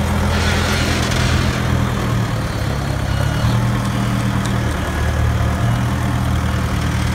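Sound effect of a heavy diesel engine idling: a steady low rumble that shifts slightly in pitch a few times.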